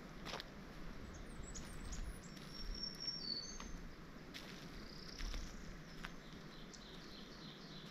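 Small birds chirping and whistling: several short high whistles in the middle and a quick run of chirps near the end, over a faint outdoor hiss. A few soft footsteps on a dirt and leaf-litter trail.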